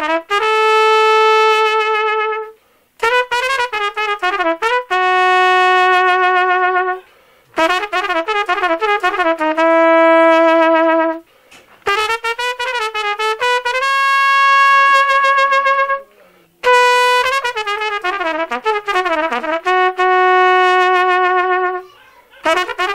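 A single brass instrument plays a slow, free-rhythm melody in about six phrases. Each phrase is a quick, wavering ornamented run that settles onto a long held note, with short pauses between phrases.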